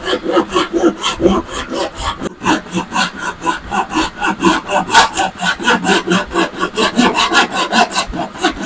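Handsaw cutting through a wooden board with rapid, even back-and-forth strokes, about five a second, with a brief break a little over two seconds in.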